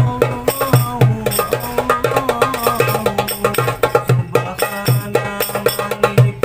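Hand-played hadroh percussion: a cast-aluminium 8¾-inch darbuka and rebana frame drums beat a steady, quick rhythm of deep open strokes and sharp high slaps. They accompany a sholawat melody that holds notes and glides between them.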